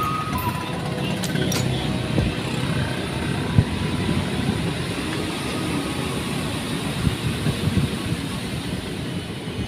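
Steady rumble and rushing road noise of a car driving along, with a single thump about three and a half seconds in.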